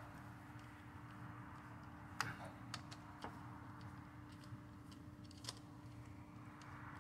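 A few faint, scattered metallic clicks and ticks as bolts are started into a transmission valve body by hand, over a steady low background hum.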